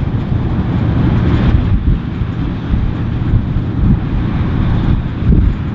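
Massey Ferguson combine harvester running as it harvests: a steady low engine rumble, briefly swelling a little near the end.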